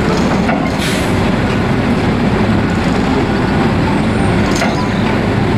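A heavy truck's engine running steadily.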